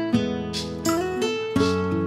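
Background music of plucked string notes and chords, with a new note struck every half second or so.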